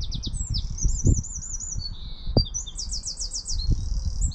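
European robin singing: a string of high, thin phrases with fast trills, one after another without a break, over a low rumble.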